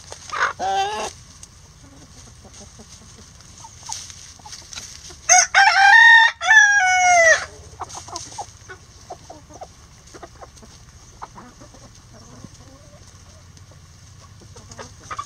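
A rooster crowing once, a loud call about two seconds long that comes about five seconds in. Near the start a chicken gives a short, falling call, and soft clicks of pecking and scratching in the wood-chip litter run in between.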